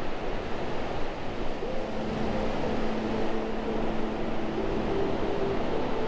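Steady wash of surf, with soft background music of long held notes coming in about a second and a half in.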